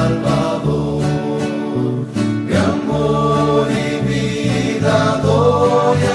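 Christian rondalla music: guitars over a stepping bass line, with a vocal group singing in close harmony.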